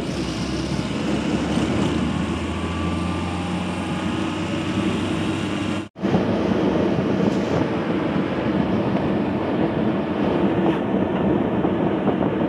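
Truck engine and road noise heard inside the cab while driving along the highway: a steady rumbling drone with a low engine hum, broken by a brief dropout about halfway.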